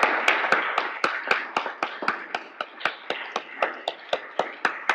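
Audience applauding, with a few sharp, close claps at a steady pace standing out over the rest; the applause thins out and grows quieter toward the end.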